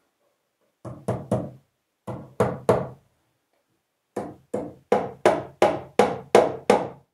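Hammer blows on the wooden roof framing overhead: three quick strikes, a pause, three more, then a steady run of about nine blows at roughly three a second.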